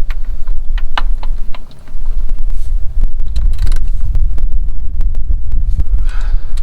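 Wind buffeting the microphone: a heavy, uneven low rumble, with a few light clicks in the first two seconds.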